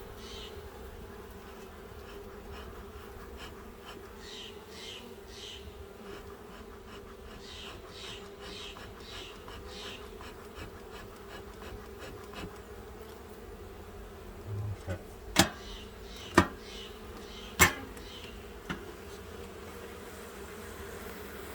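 Honeybees buzzing steadily around an open hive, a continuous hum. Three sharp knocks come close together near the end and are the loudest sounds.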